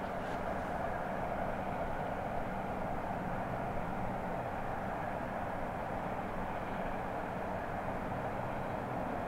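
Steady distant roar of the A1 Pacific steam locomotive 60163 Tornado standing at a station with steam rising from it, heard from far off, with faint low steady hums beneath.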